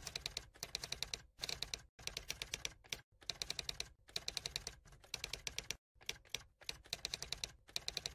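Rapid typing clicks in short runs of about ten clicks a second, each run cut off abruptly into silence before the next begins.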